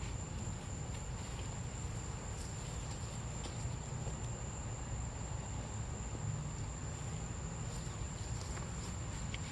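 Insects droning in one steady high pitch over a low background rumble, with a few faint clicks.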